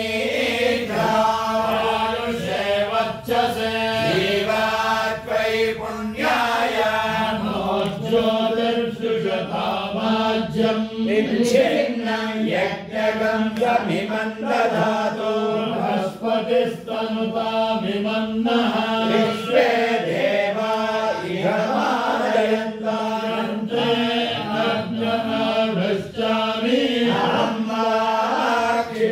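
Veda ghosha: voices reciting Vedic mantras together in a continuous chant, holding close to one steady pitch.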